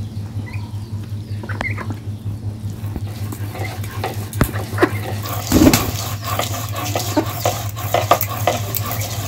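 Utensil stirring and scraping in a cooking pot, a quiet clink or two at first, then a busy run of clicks and scrapes from about halfway, with a louder knock just after it starts, over a steady low hum.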